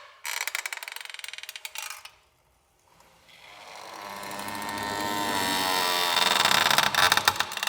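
Creaky door creaking as it is swung: a short, rapid ratcheting creak, a pause of about a second, then a long drawn-out creak that builds steadily louder.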